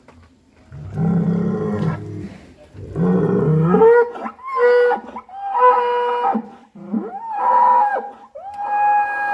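A big bull bellowing repeatedly: two deep bellows, the second climbing upward, then a run of about four high-pitched, drawn-out calls, each rising at the start and dropping away at the end.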